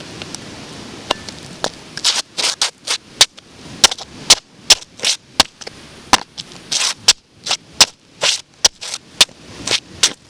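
Stiletto heels clicking sharply on concrete, about three clicks a second, starting about two seconds in and running on at a fairly even pace.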